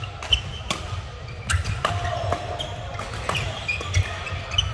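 Badminton rally: several sharp racket strikes on the shuttlecock, with court shoes squeaking and footsteps thudding on the court floor.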